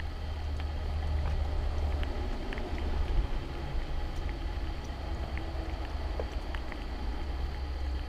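Outdoor rainy-day ambience: a steady low rumble of wind on the camera microphone, with scattered faint ticks of light rain and a faint steady high tone.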